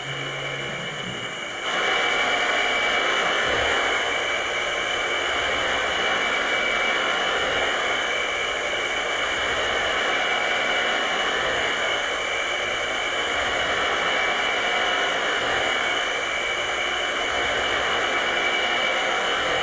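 Electronic noise texture from a live electronics set: a dense, steady hiss with a couple of held high tones in it, coming in suddenly about two seconds in as a low sustained synth tone dies away.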